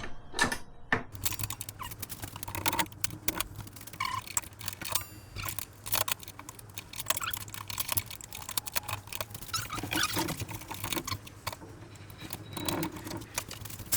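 Many small clicks, taps and rattles of metal and plastic parts being handled on a table saw around the blade, as a release lever is undone and the mounting plate is worked loose. A faint steady low hum sits underneath.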